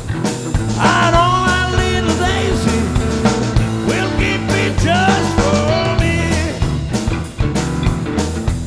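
Live blues-rock band playing electric guitar, bass guitar and drums with a steady beat. A high lead line of bending, gliding notes sounds over the band through the middle of the passage.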